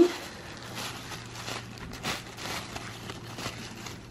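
Rustling and crinkling of white tissue-paper wrapping as hands unwrap a small plastic toy figure, an irregular run of soft crackles.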